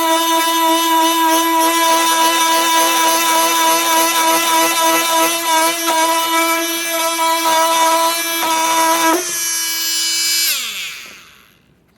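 Flex FX4111 cordless oscillating multi-tool running under load with a steady high-pitched buzz while cutting. A little after nine seconds the load drops off, and about a second later the trigger is let go and the pitch falls as the tool winds down.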